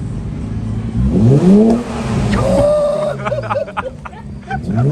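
Infiniti Q60's 3.0-litre twin-turbo V6 revved through its newly fitted catback exhaust and downpipes. The pitch climbs and falls about a second in, then a run of sharp crackles follows as the revs drop, and another rev climbs near the end.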